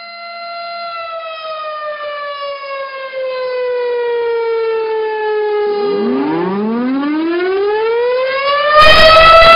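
Siren sounding for the moment of the proclamation of independence. It holds a steady note, wails down slowly, then climbs back up to full pitch. Near the end a harsh loud noise joins in and the level jumps.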